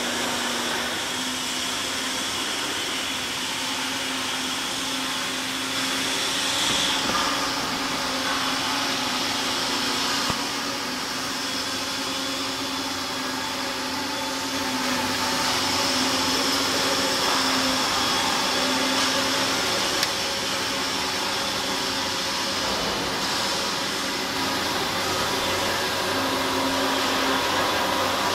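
Steady whirring machine noise from workshop machinery, with a low hum and a high whine that shifts in pitch now and then. Two short sharp clicks come about ten and twenty seconds in.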